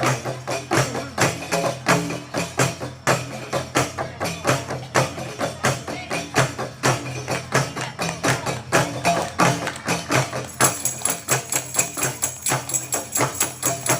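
Qasidah music: hand-struck frame drums and tambourine jingles beat a steady, quick rhythm under a melody. A bright high jingling joins about ten seconds in.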